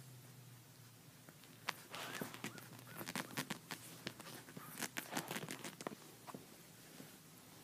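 Scratchy rustling and scuffing on a quilted comforter as a young husky puppy shifts about on it: a run of irregular soft clicks and scuffs that starts a little under two seconds in and dies away near the end.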